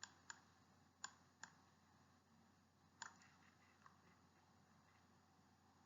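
Near silence broken by a few faint, sharp clicks, about seven in the first four seconds, spaced irregularly.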